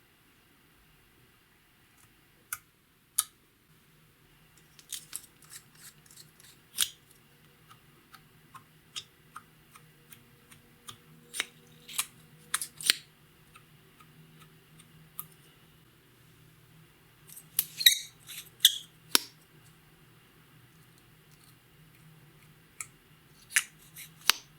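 Hands working clear slime and makeup, making irregular sharp clicks, pops and crackles that come in small clusters, over a faint low hum.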